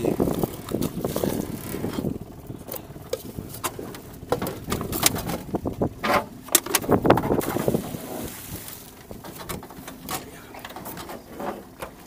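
A metal folding grapnel anchor being rinsed over the side of a small boat: water splashing and sloshing, with irregular sharp knocks and clatters of the anchor against the boat.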